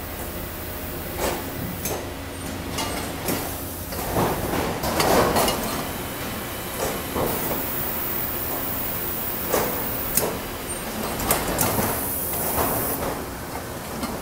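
Frozen-fish packaging machine running: a steady mechanical drone from the conveyor with irregular knocks and clatter every second or two, and a high hiss for a few seconds in the second half.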